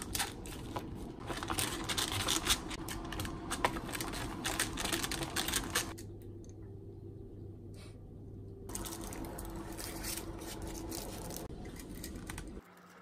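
Chopsticks stirring sticky natto in its foam tray, a fast, irregular run of light clicks against the tray. The clicking stops for about three seconds midway, then starts again as the stringy beans are scooped out.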